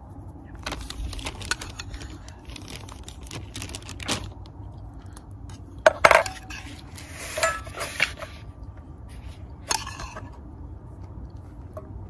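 A metal spoon clinking and scraping against a small nonstick skillet as cooked burrito filling is scooped out onto tortillas: scattered light clicks, a couple of sharp clinks about six seconds in, then a spell of scraping.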